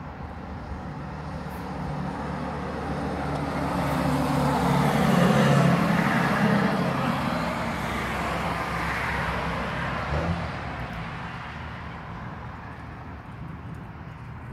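A road vehicle passing by: engine and tyre noise swelling to a peak about five seconds in, then fading away.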